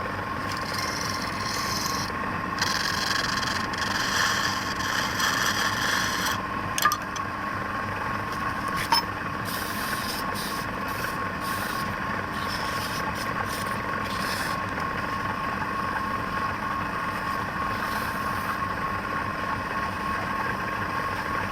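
Wood lathe running with a steady whine, while a turning tool cuts and scrapes the spinning wood in bursts during the first several seconds. Two sharp clicks come near the middle, then the lathe runs on alone.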